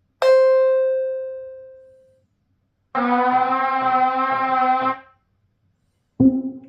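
Sampled instrument sounds from the Native Instruments Drift Theory expansion for Maschine, played one after another: a struck, bell-like tone that rings and fades over about two seconds, then a held brassy synth note lasting about two seconds, then a short low note near the end.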